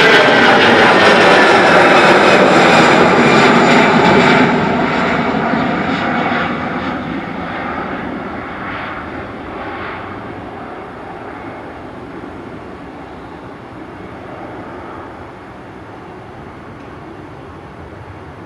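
Airbus A320-214's twin CFM56 turbofan jet engines at takeoff thrust: loud as the airliner passes, the engine tones sliding down in pitch, then a steady fade from about four seconds in as it climbs away.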